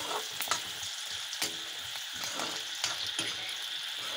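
Sliced onions sizzling as they fry in hot mustard oil in an iron kadai, with a steel ladle scraping and knocking against the pan now and then as they are stirred.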